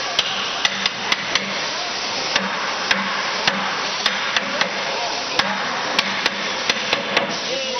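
A cooper's hammer tapping on an iron-hooped oak barrel: sharp, irregular knocks about two a second, over a steady workshop hum.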